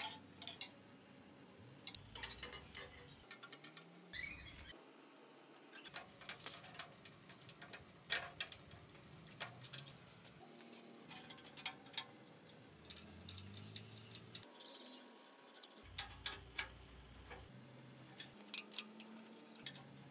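Irregular light clicks and taps of small metal parts and hand tools being handled during bicycle work, with no steady machine running.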